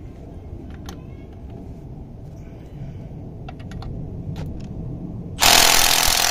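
Milwaukee cordless impact wrench on its second speed setting hammering on a wheel lug nut. It starts loud and suddenly about five seconds in, after a few light clicks of the socket being fitted. At this setting it does not break the nut loose.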